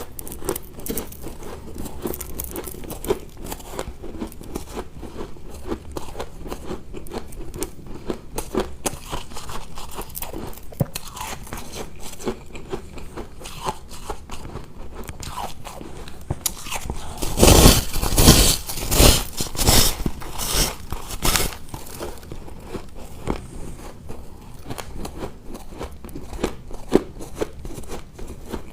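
Person biting and chewing ice cubes close to the microphone: a steady run of small crunches and cracks, with a burst of loud crunching about two-thirds of the way through.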